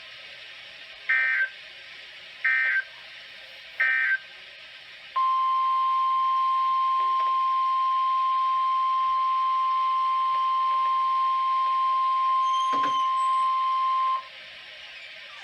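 NOAA Weather Radio alert signals: three short bursts of SAME digital data tones about a second apart, then the steady 1050 Hz warning alarm tone held for about nine seconds. There is a brief crackle of static near the end of the tone, over the receiver's steady hiss.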